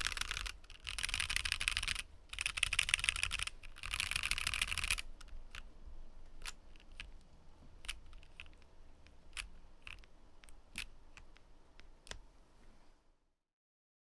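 Mechanical keyboard with Momoka Frog switches, an IV Works AV3, being typed on fast in several quick runs of keystrokes for about five seconds. Then it slows to single, spaced-out key presses, which stop about 13 seconds in.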